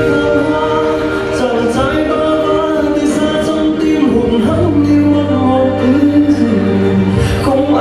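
Music: a song with a singing voice over sustained instrumental backing, with a low bass note coming in about halfway through.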